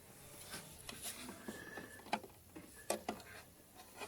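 A few light clicks and taps of small parts being handled, two of them close together near the end.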